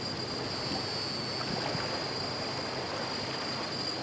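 Small waves washing and lapping over rocks and shells at the water's edge, with a steady high-pitched trill of crickets above.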